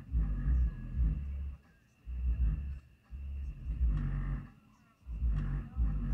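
Low, deep booming noise coming in repeated surges, each about a second long with short breaks between, over a faint steady high whine: intrusive low-frequency noise pollution from an unseen source.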